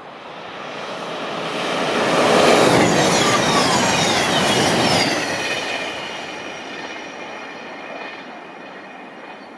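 CrossCountry diesel passenger train passing close by at speed. A rush of wheel and air noise builds, peaks for a few seconds with a high whine that slides down in pitch as the train goes by, then fades away.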